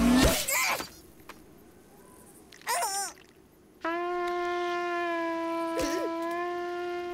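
Cartoon sound effects: a loud crash-like burst at the start, a short wavering squeal a little before the middle, then from about four seconds in a long, steady horn-like note held at one pitch.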